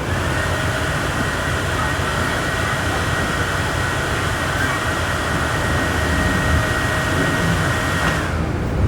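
Volksbus 17.230 OD bus under way, its engine and road noise rumbling steadily beneath a constant high whine from the rear differential, which fades out near the end.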